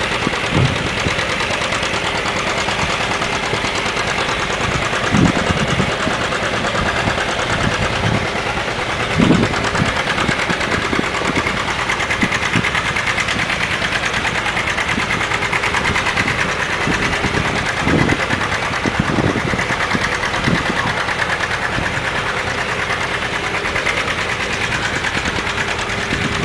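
Antique tractor engines running steadily, a dense rapid chugging with a few louder knocks now and then.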